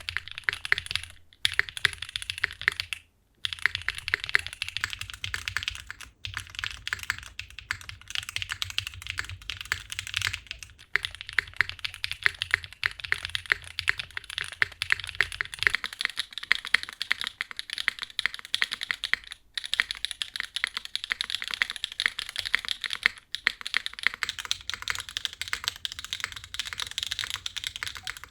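Fast, continuous typing on a mechanical keyboard: a dense run of clacking keystrokes with a few short pauses. About halfway through the sound changes and loses its low undertone.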